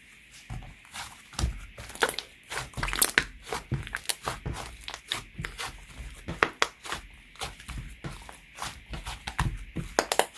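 Hand-mixed liquid slime being squeezed, stretched and pressed, giving a run of irregular sticky clicks and small pops, several a second, with soft thuds as it is folded.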